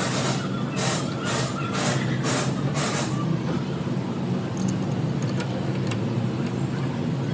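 A vehicle engine running at a steady idle, with about six short, rough, rattling noises, roughly two a second, over the first three seconds.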